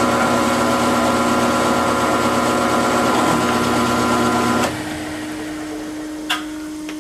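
Grizzly G0705 mill-drill spindle motor running steadily with a whine of several fixed tones, then shutting off abruptly about two-thirds of the way in. A steady low hum carries on after it stops, and a single sharp click comes about a second and a half later.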